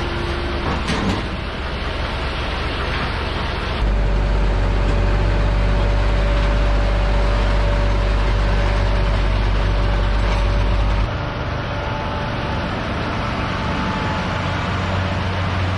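Case Puma 175 CVX tractor and Case RB465 round baler running steadily while baling hay. The sound changes abruptly about four seconds in and again about eleven seconds in, with a steady whine between those points.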